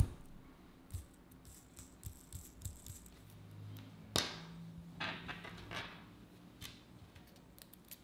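Small clicks and taps of fingerboard parts (wheels, bearings and trucks) being handled and set down on a tabletop, with a sharper click just after four seconds and a quick run of clicks soon after.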